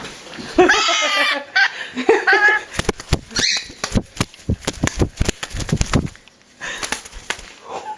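A person laughing, then a quick run of sharp taps and clicks for a few seconds.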